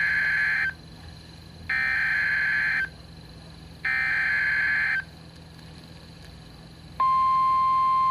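Start of an Emergency Alert System tornado warning: three bursts of SAME header data, each about a second long, then about seven seconds in the long, steady single-pitch weather-radio alert tone begins.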